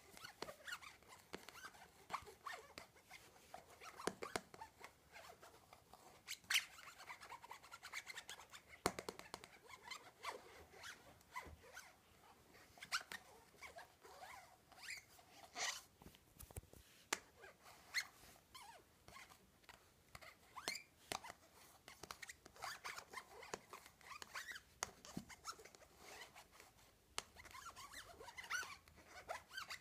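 Fingers and nails scratching and tapping on a plastic cup: a faint, irregular run of short scratches and clicks.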